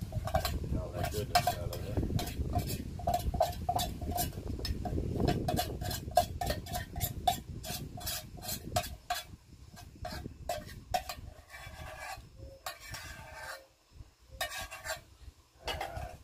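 A metal utensil scraping and clinking inside a steel canteen cup as food is stirred: quick irregular strokes, several a second, thinning out in the second half, over a low rumble that fades out about halfway.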